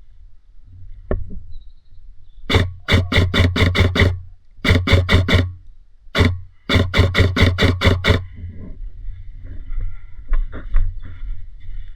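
Airsoft gun firing close to the microphone in three quick strings of shots, about five or six a second, with a single shot between the second and third strings.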